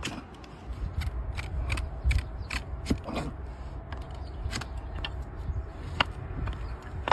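Hoof knife cutting and scraping the overgrown horn of a neglected donkey's hoof: a run of short, irregular scrapes and cracks, about a dozen in seven seconds.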